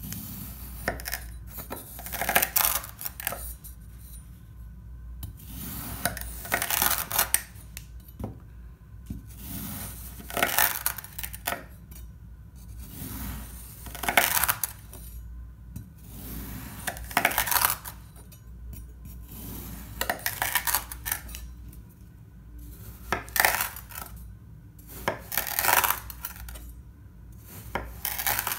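Chef's knife slicing through packed kinetic sand, a crisp crunch with each cut. The cuts come every one to three seconds, some in quick pairs.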